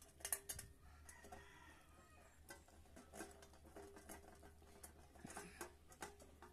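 Faint clicks and taps of a screw and metal handle being fitted to the sheet-metal case of an inverter welding machine, the sharpest click about a third of a second in. A chicken clucks in the background.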